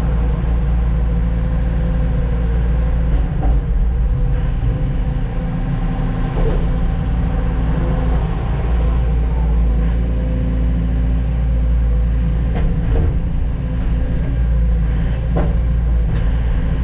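Heavy diesel truck engine running steadily under a low rumble, with a few short knocks and rattles.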